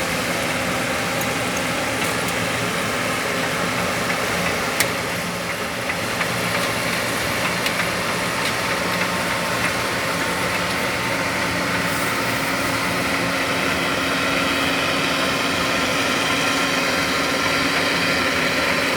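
Perkins 1006-T turbocharged six-cylinder diesel engine of a 5650 combine harvester running steadily at a constant speed.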